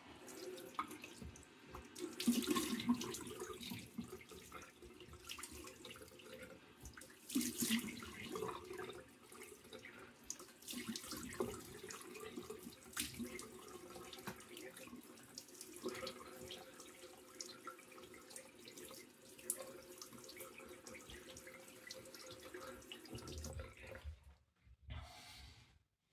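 Bathroom tap running into a sink with splashes as handfuls of water rinse the face after a wet shave; the water stops shortly before the end.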